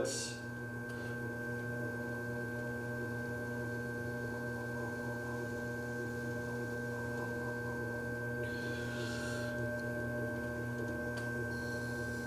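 Electric potter's wheel running with a steady hum of several fixed tones, and a short scrape of a loop trimming tool cutting leather-hard clay about nine seconds in.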